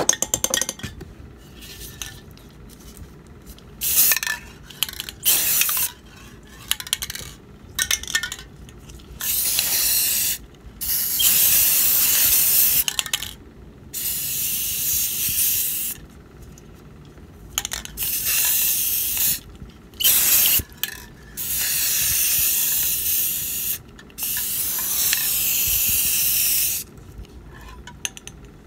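Aerosol can of metallic spray paint spraying in repeated bursts of hiss, some brief and several lasting two or three seconds.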